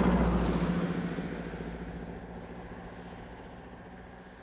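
The end of the song's track: the sustained bass and last chord cut off just after the start, leaving a noisy, engine-like wash that fades away steadily over about four seconds.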